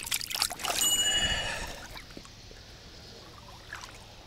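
Hands splashing in the water at a keepnet, likely putting a caught crucian carp in, with a brief high ringing chime about a second in. It then drops to a quiet, steady outdoor background.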